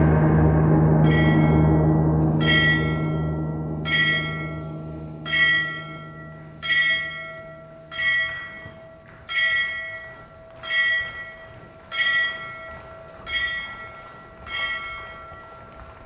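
A bell tolling slowly and evenly, about ten strokes roughly a second and a half apart, over a low sustained drone that fades away during the first several seconds.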